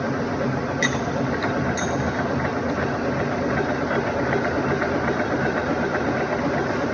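Lathe machinery running with a steady mechanical hum, as the tailstock center is backed out of the work; two sharp metallic clicks come about one and two seconds in.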